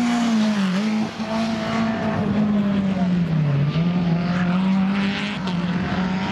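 Renault Clio rally car's engine running hard at high revs as the car passes and pulls away, its pitch dipping and climbing again twice, about a second in and again past three seconds in.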